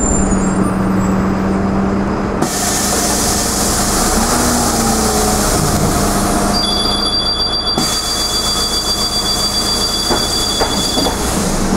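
Interior of a Karosa B961 articulated city bus: the diesel engine runs with a steady low hum. A couple of seconds in, a loud even hiss of air starts suddenly, and about halfway through a high steady tone joins it. The hiss and tone stop shortly before the end.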